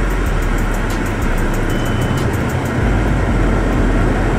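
Steady rumble and rushing noise of a car, heard from inside the cabin.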